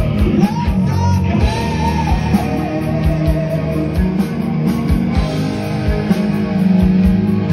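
Live rock band playing: electric guitar lead line with bent, wavering notes over sustained low bass and guitar, with the drum kit's kick drum beating steadily underneath.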